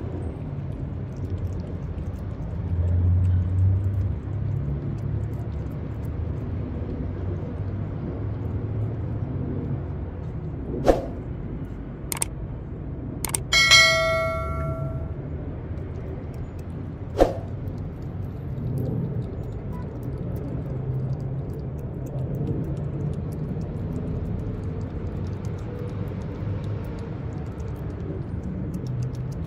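Steady low rumble of street traffic, with a few sharp clicks. Just before the middle, a click and a ringing bell chime come from a subscribe-button animation.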